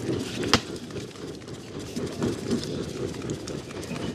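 Wood fire crackling under a large cooking pot as split sticks of firewood are pushed into it, with one sharp crack about half a second in.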